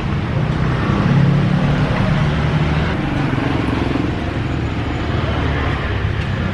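Motor vehicle engine running steadily close by amid street traffic, its low hum shifting in pitch about one to three seconds in.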